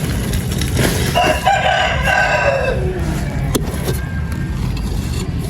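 A rooster crows once, a call of about two seconds that drops in pitch at the end, over a steady low rumble. A single sharp click follows about a second later.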